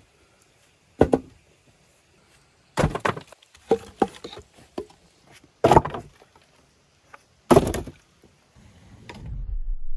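Firewood logs knocking and clattering as they are dropped down into a tandoor pit, in several separate wooden clunks a second or two apart. A low rumble swells near the end.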